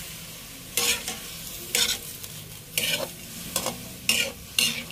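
A metal spatula scrapes and stirs pieces of chicken liver and gizzard in a metal wok, in about six strokes roughly a second apart, over a low steady sizzle.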